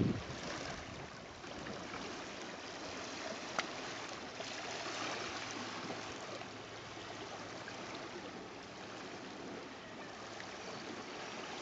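Shallow sea water lapping and trickling among low, weed-covered rock ledges at the shoreline: a steady, even wash. A single brief click about three and a half seconds in.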